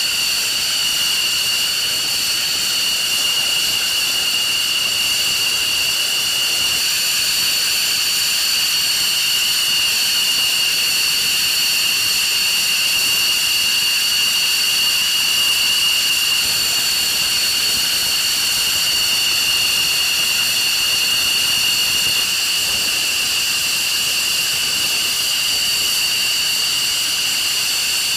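An F-15 Eagle's jet engines idling: a steady high-pitched whine over a loud hiss, holding constant throughout.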